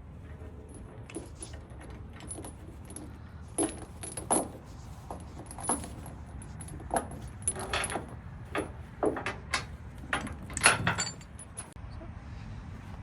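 Irregular metallic clinking and clattering, many small knocks with a louder cluster near the end, over a steady low rumble.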